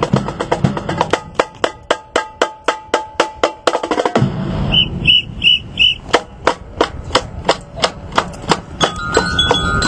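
Drum cadence for a flag drill team: sharp, evenly spaced drum strikes at a quick steady beat, with four short high tones about five seconds in.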